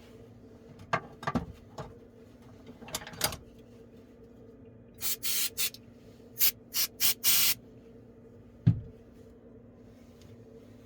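A run of short, sharp hissing spray bursts, about seven in quick succession. They are preceded by a few handling clicks and knocks, and followed by a single low thump.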